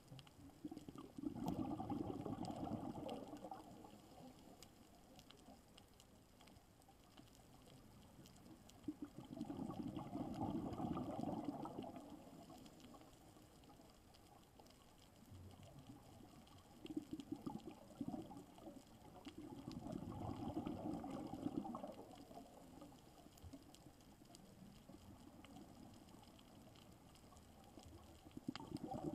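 A scuba diver's exhaled air bubbling out of the regulator, heard underwater: bursts of bubbling lasting two to three seconds, coming back roughly every eight to ten seconds with the diver's breathing, about four times.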